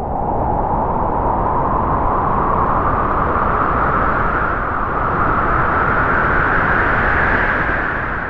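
A gust of howling wind from a spooky sound-effects track: a loud rushing noise that swells in abruptly, holds, and slowly rises in pitch, with a low rumble underneath.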